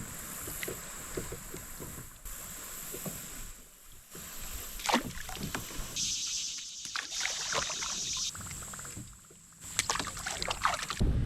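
Water sloshing and splashing around a kayak, with scattered knocks and clicks. A steady hiss runs for about two seconds midway, and the sound changes suddenly to a low rumble near the end.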